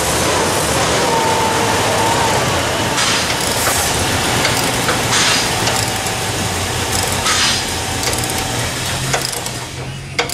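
A torch flame hissing steadily as it heats a seized front-suspension control-arm bolt to free it, with a low steady hum underneath.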